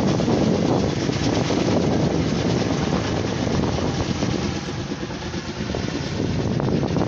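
Helicopter flying overhead with a water bucket slung beneath it, its rotor noise steady and loud, easing off slightly around four to six seconds in, with some wind on the microphone.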